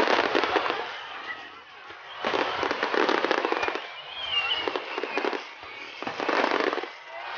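Starmine fireworks display: aerial shells bursting in rapid volleys, four dense surges of crackling bangs, each about a second long, with short lulls between them.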